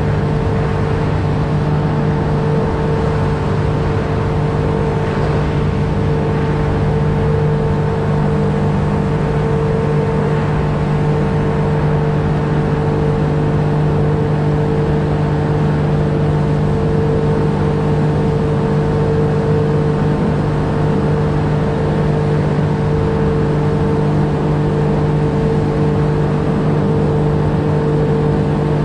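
Outboard motor running at a steady throttle, a constant drone that keeps an even pitch.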